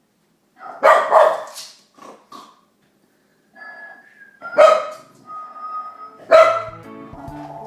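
A dog barking several times in loud separate bursts, with thin high held tones between the barks. Music starts near the end.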